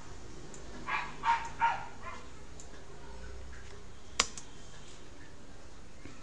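A dog barking three times in quick succession, followed a couple of seconds later by a single sharp click.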